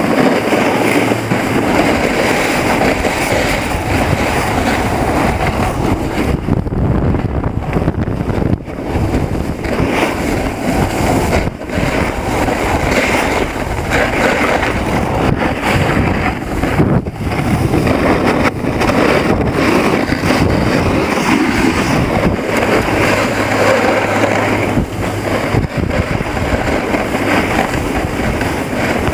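Continuous rush of wind buffeting the microphone, mixed with the hiss and scrape of a snowboard sliding over packed snow during a run.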